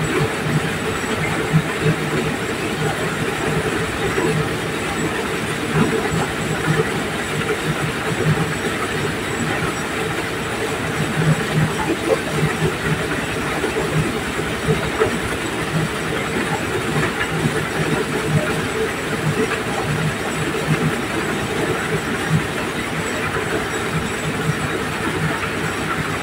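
Diesel-powered mobile corn sheller running steadily, a continuous machine drone with irregular rattling as cobs are fed in and shelled kernels pour out onto the heap.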